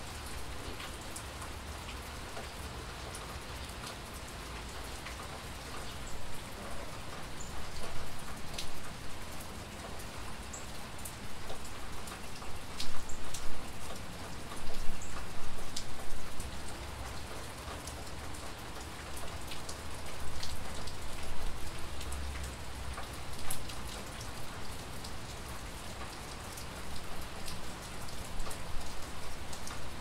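Steady rain falling, with scattered single drops striking close by and the rain growing louder in several spells: around a quarter of the way in, near the middle, and again past two thirds.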